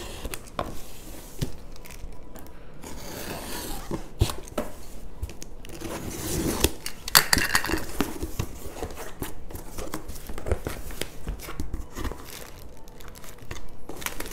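Cardboard shipping box being cut open and unpacked: packing tape slit with a box cutter and torn, cardboard flaps pulled back, and plastic and bubble wrap crinkling, in irregular scrapes and rustles that are loudest a little past the middle.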